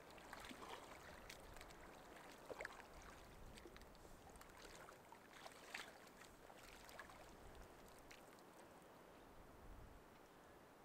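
Faint sloshing and gurgling of lake water as a soft water-filter bag is dipped in and filled, with a few small splashes and clicks.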